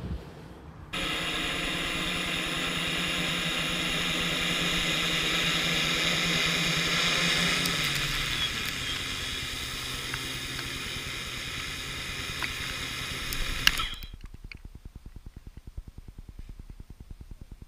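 Model quadplane's vertical-lift electric motors and propellers running on the ground close by, a steady whir with propwash blowing across the grass. The pitch drops about 8 s in as the throttle comes down, and the sound cuts off abruptly about 14 s in, leaving faint regular ticking.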